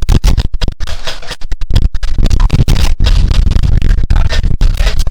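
Wind buffeting the camera's microphone: a loud, choppy rushing noise that cuts in and out, with a heavy low rumble from about two seconds in.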